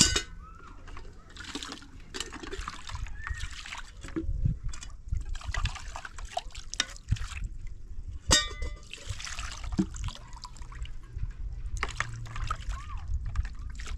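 Water splashing and trickling in repeated bursts, with a few sharp knocks.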